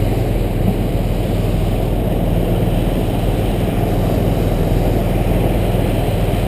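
A vehicle engine running steadily with a low drone during a river crossing.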